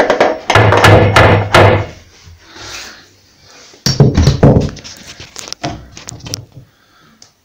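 Hammer knocking the bottom corner of a wooden cupboard front frame to push it out, since the corner is slightly kicking out: two runs of heavy wooden thuds a couple of seconds apart, then a few lighter taps.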